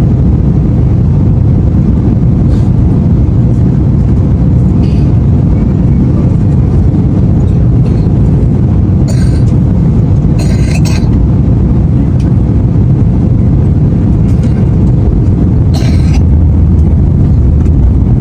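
Steady loud cabin rumble of an airliner in flight: engine and airflow noise heard from inside near the wing. A few brief faint higher sounds come through it around the middle and near the end.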